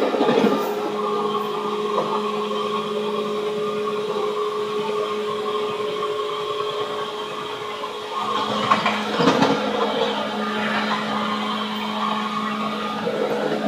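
Seibu 2000 series electric train running, heard from inside the passenger car: a steady electric hum at an even pitch over wheel and rail noise. A short stretch of rattling clatter comes about eight to ten seconds in.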